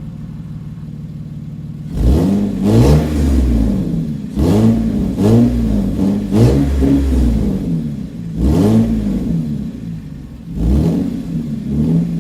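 Lexus GS300's 3.0-litre inline-six idling steadily through a newly fitted Flowmaster header and Magnaflow catalytic mid-pipe, then revved in a string of about eight quick throttle blips from about two seconds in, each rising and falling in pitch.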